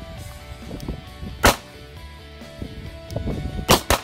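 Three pistol shots: one about a second and a half in, then two in quick succession near the end, over background music.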